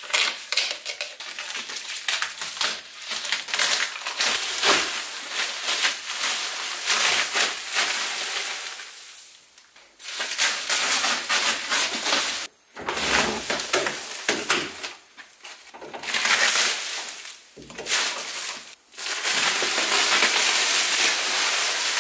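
Plastic masking sheeting crinkling and rustling as it is pulled and bunched off a freshly painted car body, with masking tape peeling away. The rustling comes in stretches broken by a few short pauses.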